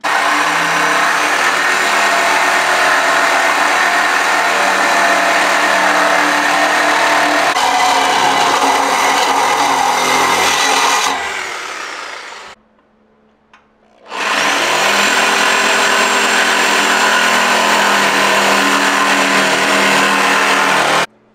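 A handheld power tool cutting through the factory exhaust midpipe of a BMW G80 M3. It runs loud and steady, winds down about eleven seconds in and stops briefly, then spins back up and runs until it cuts off near the end.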